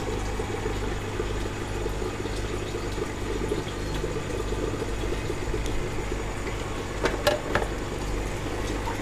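Steady hum of an aquarium water pump, with water running, and a few light knocks about seven seconds in.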